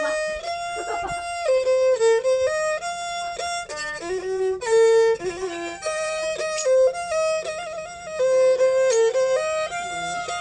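Thai bowed fiddle (saw) playing a mahori melody: a single line of held notes that step up and down, with short slides between some of them.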